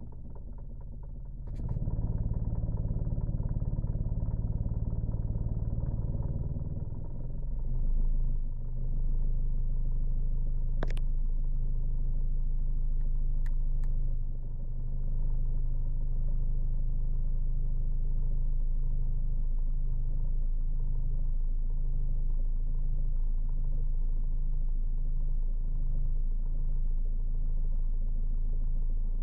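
Renault Clio 1.5 dCi common-rail four-cylinder diesel starting cold about two seconds in and running. About seven seconds in the idle sags into a lower, uneven beat and stays there, with a few sharp clicks around the middle. This is the owner's cold-start fault: the revs fall from about 900 to about 200 rpm for around 30 seconds after the first start.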